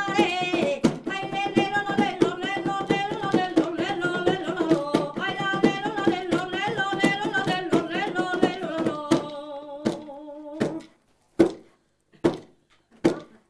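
Traditional folk singing over a steady beat struck on square frame drums (pandeiros). The song ends on one held note about ten seconds in, followed by a few separate knocks.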